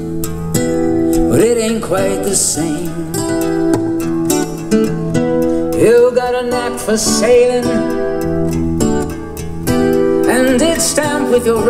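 Music: a song with guitar and a singing voice.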